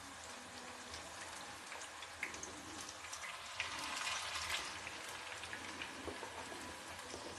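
Noodle pakoras frying in hot oil in a pan, a steady crackling sizzle with scattered pops. The sizzle grows louder for about a second starting about three and a half seconds in, as a fritter is lowered into the oil by hand.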